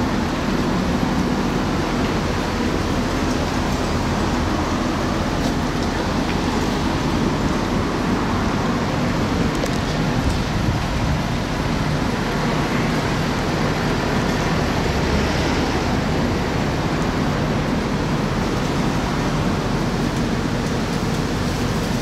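Strong wind blowing on the microphone: a steady loud rush with a churning low rumble, rising and falling a little but never stopping.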